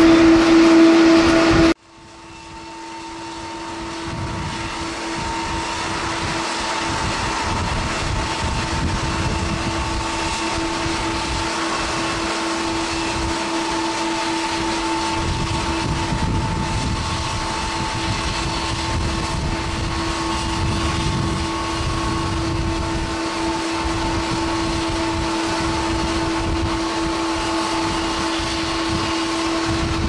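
Jet airliner noise: first another airliner's engines on the runway, cut off abruptly about two seconds in, then the Rolls-Royce Trent XWB engines of a Japan Airlines Airbus A350 on landing approach, a steady rumble with a faint hum that builds over the next few seconds as the jet draws nearer and then holds steady.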